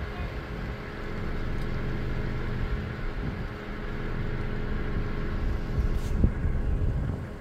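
A vehicle engine running steadily with a low rumble, under rustling noise. A single sharp click comes about six seconds in.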